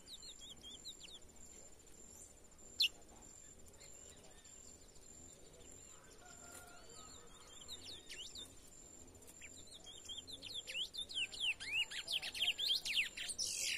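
Young male chestnut-bellied seed finch (curió) in brown 'pardo' plumage singing, still loosening up into full song: a few short twittering phrases at first, scattered chirps, then from about ten seconds in a loud, fast run of rapid descending notes. A single sharp click about three seconds in, and a steady high-pitched tone in the background.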